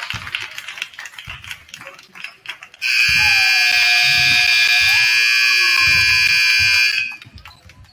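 Gym scoreboard horn sounding the end-of-game buzzer as the clock runs out: a loud, steady blare of about four seconds that starts and cuts off sharply. Low thumps come before and under it.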